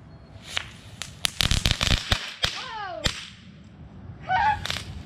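Small firework going off in an irregular string of sharp crackling pops, thickest in the first couple of seconds, with a brief falling whistle partway through.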